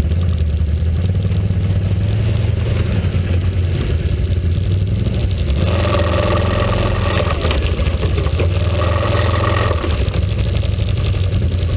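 An ATV engine runs steadily with a low drone. About six seconds in, a second Can-Am ATV drives up close past it, adding its own higher engine note for about four seconds before it fades.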